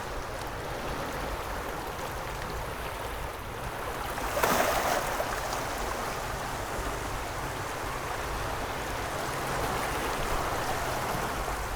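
Small waves lapping on a calm sandy beach, a steady wash of water with one louder wave washing in about four and a half seconds in.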